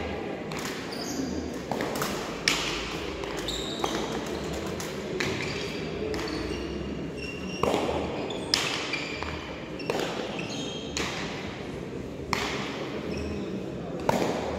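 Hard pelota dura ball in a frontón rally, struck by bare hands and rebounding off the wall and floor: about ten sharp cracks roughly every second, each echoing in the large hall, over a murmur of spectators' voices.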